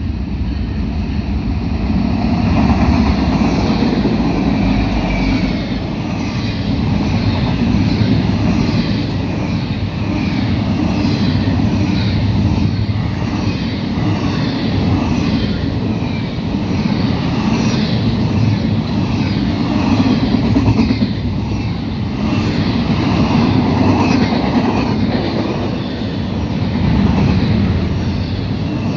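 Norfolk Southern freight train rolling past: a steady loud rumble of the cars, with a repeating clatter of wheels over the rail joints, about one to two beats a second.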